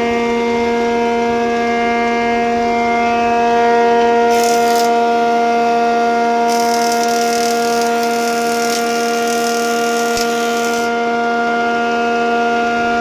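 A large woodworking planer-jointer running at speed, giving a steady high-pitched whine of several tones at once. A hiss joins it briefly about four seconds in and again for several seconds in the middle.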